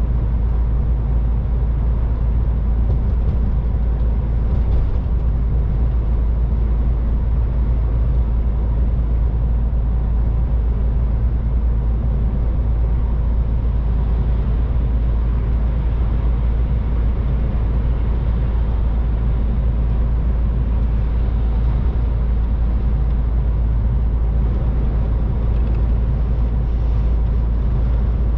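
MAN TGX 18.510 semi-truck driving steadily, its straight-six diesel giving a constant low drone under an even hiss of tyre and road noise.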